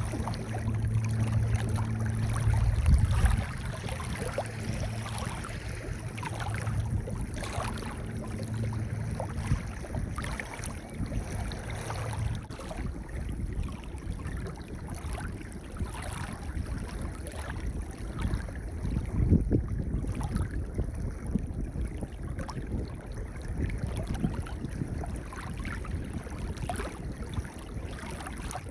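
Sea waves washing onto a pebble beach, the stones crackling and clattering as the water runs up and draws back, with heavier surges about three seconds in and again near the twenty-second mark. A low steady hum sits under the first twelve seconds, then fades out.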